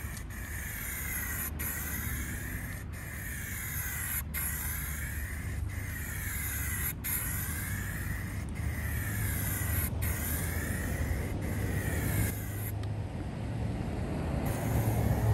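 Background music with a slow, even beat, a soft hit about every second and a half.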